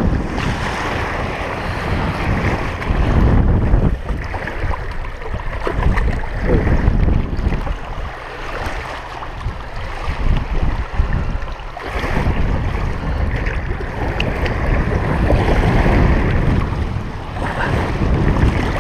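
Wind buffeting the camera microphone in gusts, over small waves lapping on a rocky shoreline.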